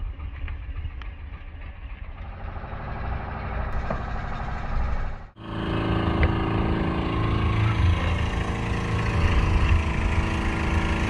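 An outrigger boat's engine running steadily. About five seconds in, the sound breaks off for an instant and comes back louder.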